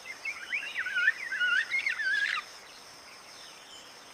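A bird chirping: a quick run of wavering, twittering calls that stops about two and a half seconds in, leaving a faint steady hiss with a thin high whine and a few weak chirps.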